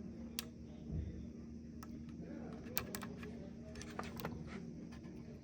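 Light, scattered plastic clicks and taps from a SATA cable connector being handled and pressed into place inside a mini PC. There is a low bump about a second in, and a faint steady hum underneath.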